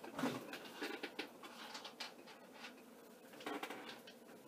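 Scattered light knocks, clicks and rustles of a person moving about and handling small plastic model-locomotive parts, with a few sharper taps just after the start, around a second in and again about three and a half seconds in.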